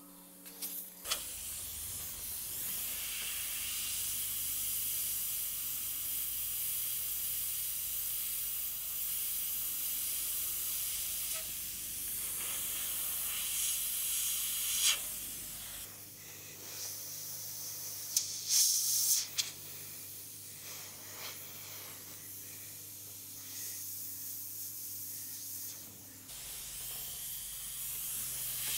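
Airbrush spraying paint: a steady hiss of compressed air through the nozzle that swells and fades with each pass, with a few louder blasts about halfway through.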